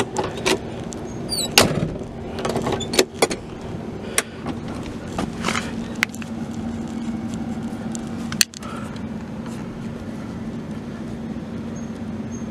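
The driver's door of a 1963 Chrysler New Yorker wagon being opened by its chrome handle and handled: a string of sharp clicks and clunks from the handle, latch and door, the loudest in the first few seconds, over a steady low hum.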